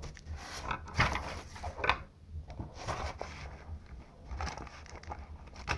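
Handling sounds of a sheet of paper and a pen being picked up and moved on a table, with a few light knocks about one and two seconds in and again near the end.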